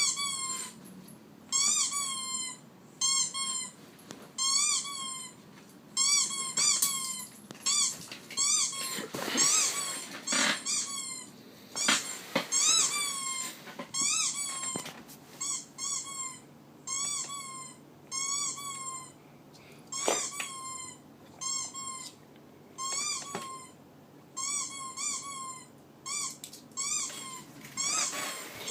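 A dog giving short, high squeaks over and over, about one every second and a half, each one rising and then falling in pitch. A few soft knocks come in among them.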